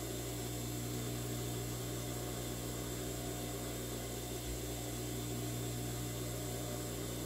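Steady low electric hum of an industrial sewing machine's motor left running idle.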